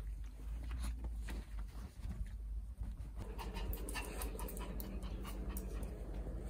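Maltese dog panting, with scattered light clicks of steps on a wooden floor as it follows along.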